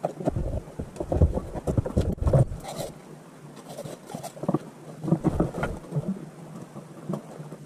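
Irregular knocks, clinks and rustling of hand tools on the pipe fittings at the top of a water heater during installation. They are busiest in the first two and a half seconds and again around five seconds in.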